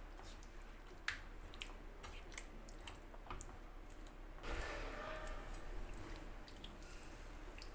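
Wet squelching and scattered small clicks of a thick chicken curry being cooked and stirred in a pan, with a louder hissing stretch lasting about a second and a half halfway through.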